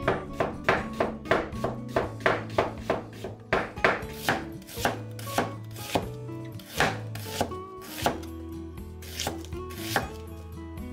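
Chef's knife slicing an onion on a wooden cutting board: a run of crisp knocks of the blade on the board, about three a second, slowing to one or two a second after about four seconds and thinning out near the end. Background music plays underneath.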